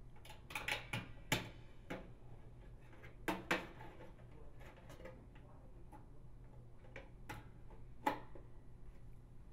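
Light clicks, taps and scraping of a sheet-metal light-receptacle bracket and its wires being pushed into a NuTone bath fan's metal housing. The sharpest clicks come about one, three and a half and eight seconds in.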